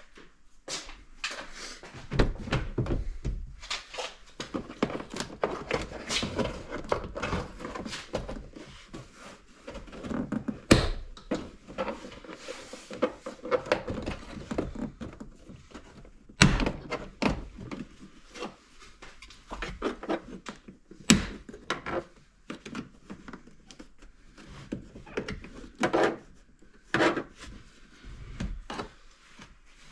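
Irregular thunks, knocks and clicks of an Audi A3's interior door trim panel being pried and pulled off, plastic panel and clips knocking against the door, with a few sharper knocks among them.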